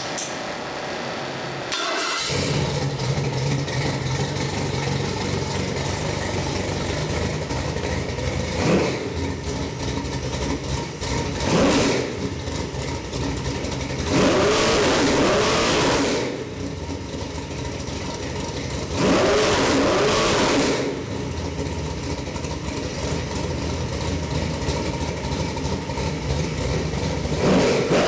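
Ford 418 Windsor stroker small-block V8 with a four-barrel carburettor, run on an engine test stand. It catches about two seconds in, then idles between repeated throttle blips, with two longer revs held for a couple of seconds each.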